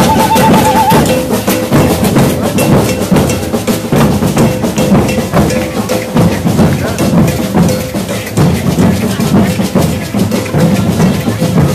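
A procession drum group beating drums with sticks in a steady driving rhythm, with gourd shakers, over the voices of a crowd.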